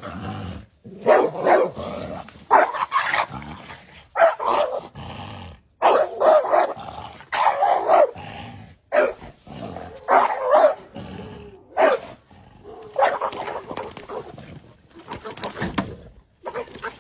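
A dog barking over and over in loud bursts, roughly one a second.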